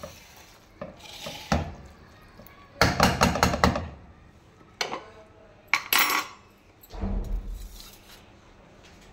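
Metal spatula knocking and scraping against a nonstick frying pan while stirring macaroni, with scattered single knocks and a quick flurry of strokes about three seconds in. A duller knock comes about seven seconds in.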